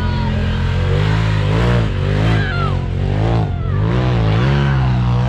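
Side-by-side UTV engine revving up and down over and over as the throttle is worked, as in rock crawling.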